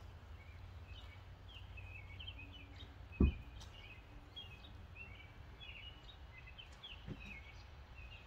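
Birds chirping over a low outdoor rumble, with one loud thump about three seconds in as the minivan's rear liftgate is unlatched and opened, and a softer knock near the end.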